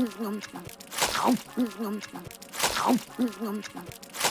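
Cartoon eating noises on a short loop: a loud falling whoosh as a whole sub sandwich is shoved into the mouth, then muffled, wobbling hums and small clicks of chewing with a full mouth. The cycle repeats about every second and a half.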